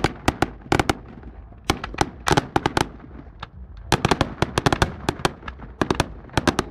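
Fireworks display: sharp bangs of aerial shells bursting in quick clusters, with short lulls, then a dense rapid run of bangs from about four seconds in.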